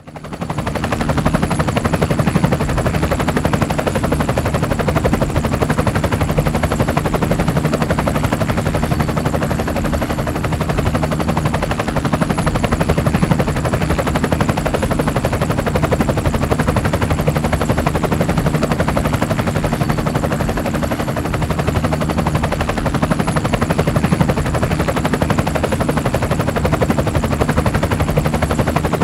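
Small camera drone's electric motors and propellers running steadily: a loud, even, rapidly pulsing buzz.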